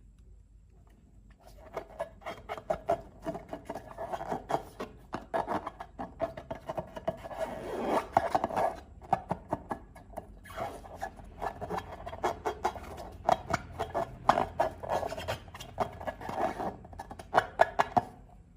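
Slime being worked and squished, giving a dense run of wet, sticky clicks and crackles. It starts about a second and a half in and stops just before the end.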